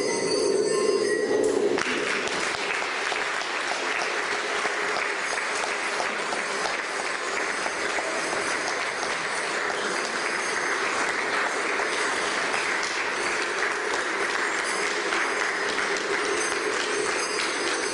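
Audience applause in a large room: lion-dance percussion stops about two seconds in and sustained clapping follows, with the percussion starting up again near the end.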